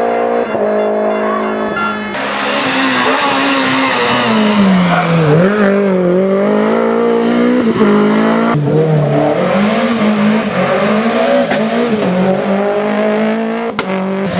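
Renault Clio Williams rally car's 2.0-litre four-cylinder engine driven hard: held at high revs at first, then the pitch repeatedly drops and climbs again as the driver lifts off and changes gear. The sound changes abruptly twice where different passes are cut together.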